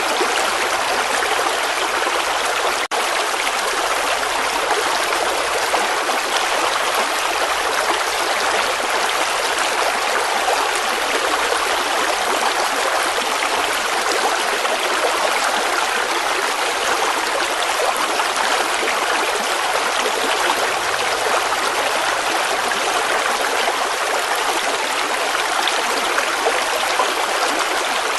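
Running water flowing steadily, an even rush like a stream, with a split-second dropout about three seconds in.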